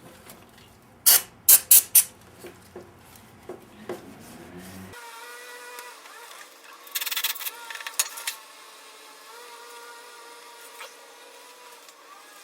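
A cloth rubbing and scrubbing over the bare cast-iron engine block. About a second in comes a quick run of four short, sharp scrubbing strokes, then quieter rubbing, and a longer scrubbing spell about seven seconds in.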